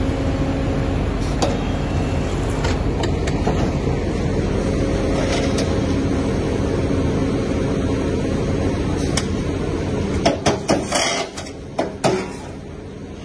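Hidromek HMK220 excavator's diesel engine running steadily under hydraulic load while its VTN CI2000 shear works the scrap pile. About ten seconds in comes a quick series of sharp cracks and clatters as material snaps in the jaws and falls. Then the engine sound drops to a lower level near the end.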